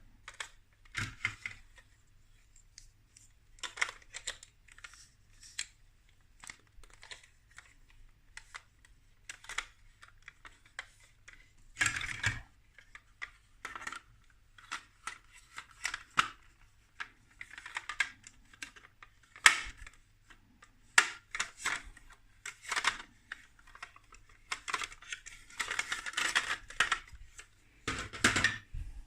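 Plastic building-block pieces clicking and clattering as they are handled and pressed together. Irregular small clicks run throughout, with louder bursts of clatter about twelve seconds in and again near the end.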